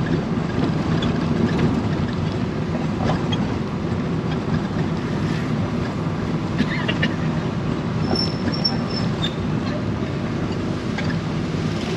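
Multi-cab's engine running steadily with road noise, heard from on board while riding.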